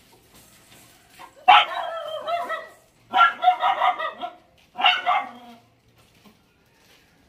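Dogs barking in three runs of rapid, high barks, each about a second long, stopping about two-thirds of the way through.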